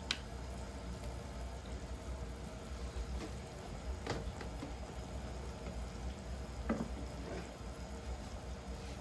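Adobo braising liquid simmering in a pan, a steady low bubbling with a few small pops.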